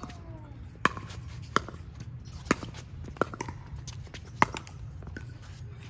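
Pickleball rally: paddles striking the hard plastic ball with sharp pops, about five hits roughly a second apart, with fainter ticks in between.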